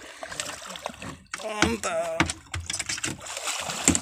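Splashing water as a hooked barracuda is hauled alongside a small boat on a handline and grabbed by hand, with knocks against the hull. A person's voice calls out about one and a half seconds in.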